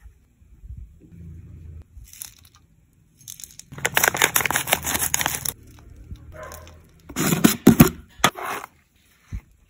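Dry crackling and rattling from crisp food toppings and plastic packaging being handled: a dense stretch of about two seconds near the middle, then a shorter burst near the end as the plastic jar of wafer sticks is handled.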